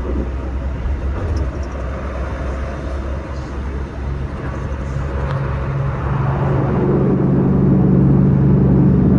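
Car engine and road noise heard from a moving car. A steady low hum and rumble is joined by a stronger engine hum about four seconds in, growing louder through the last few seconds.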